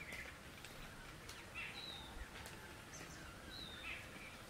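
A bird calling over and over, a short two-part call repeated three times about two seconds apart, above a faint steady background hiss.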